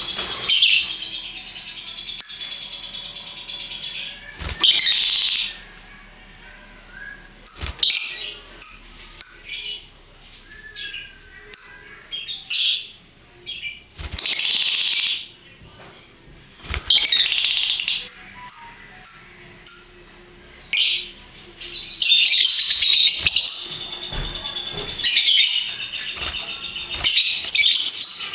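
Lovebirds chattering in repeated shrill, high-pitched bursts of about half a second to two seconds each, with short pauses between.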